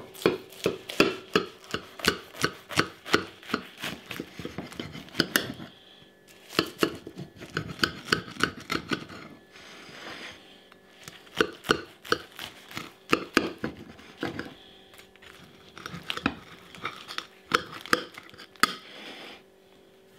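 Kitchen knife sawing through the crisp baked tortilla crust of a chicken pot pie on a plate. The strokes come quickly, about two or three a second, in several runs with short pauses between them.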